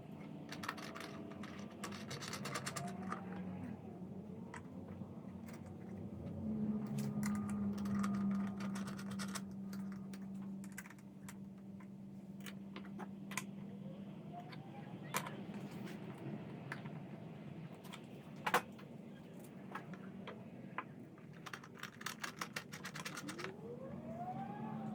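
Scattered light clicks and taps of small parts and hand tools being handled at a workbench, over a steady low hum.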